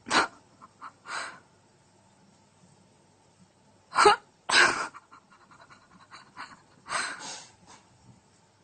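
A pet animal making short, sharp, sneeze-like hissing bursts: a pair near the start, another pair about four seconds in, and a last pair about seven seconds in.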